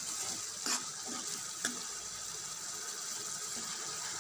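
Onion and tomato paste sizzling steadily in hot oil in a nonstick pan, with a spoon scraping through it twice in the first two seconds.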